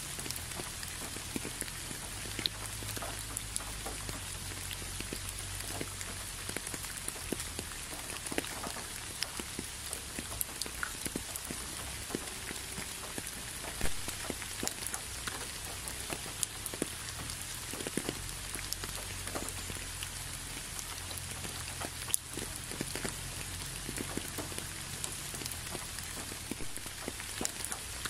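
Steady rain falling, with many single drops ticking out close by over an even hiss and a low steady rumble underneath.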